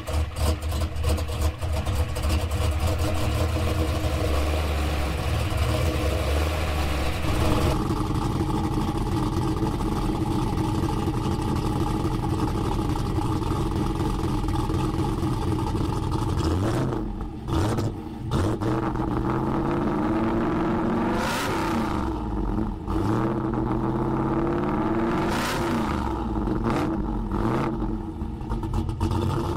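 Pontiac Trans Am's LS1 V8 just after a cold start. It runs at a high fast idle that drops to a lower idle about eight seconds in, then is revved hard three times in the second half while still cold, heard at the dual exhaust tips.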